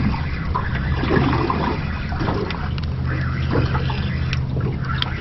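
Water gurgling and slapping against the hull of a small boat, over a steady low hum.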